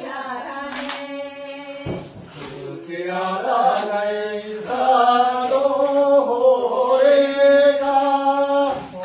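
Voices chanting a slow song in long held, gliding notes, louder from about five seconds in, with a single thump about two seconds in.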